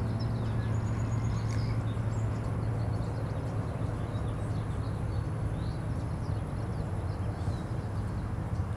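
Steady low rumble of distant traffic, with small birds chirping faintly now and then.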